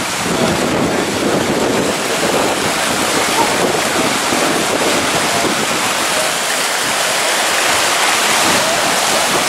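Loud, steady rushing of floodwater from a burst water main, pouring across a street and through yards.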